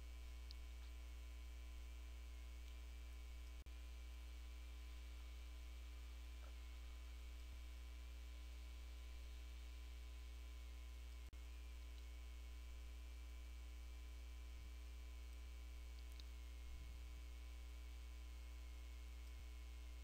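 Steady low electrical hum with faint hiss.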